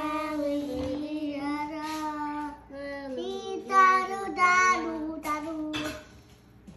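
A young child singing a wordless tune, held notes that slide up and down, stopping shortly before the end.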